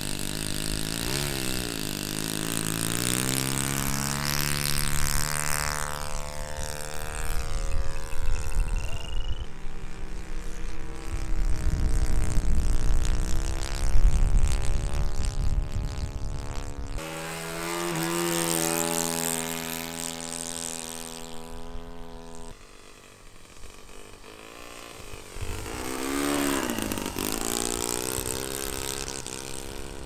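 Small radio-controlled model airplane engines running steadily and flying past, their pitch dipping and rising again as a plane passes. Strong gusts buffet the microphone in the middle stretch and are the loudest sound there. The sound changes abruptly several times.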